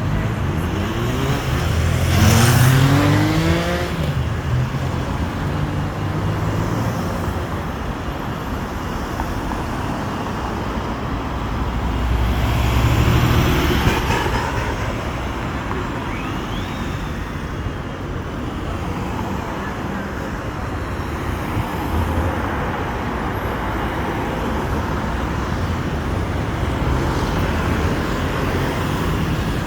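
Road vehicle noise: a steady rumble of engine and tyres, with a rising engine note about two seconds in and a louder swell around thirteen seconds in.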